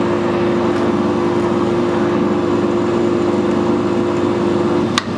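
Metal lathe running slowly under power feed while screw-cutting a thread, with a thread tap used as the cutting tool; the motor and gear train give a steady hum with one strong steady tone. A sharp click comes near the end.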